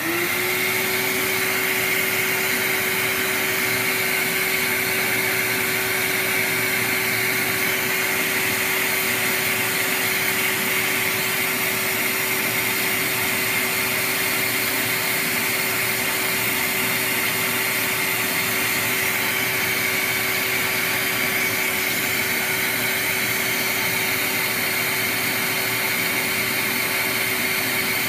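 BKM 4 reed profiling machine with its hose-connected dust extraction running steadily while it shaves a clarinet reed blank thinner. It comes up to speed right at the start and then holds a constant whine over a rushing noise.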